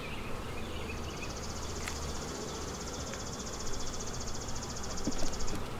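Honeybees buzzing around an open hive box as its frames are worked. A high, fast-pulsing trill sounds over them from about a second in until shortly before the end.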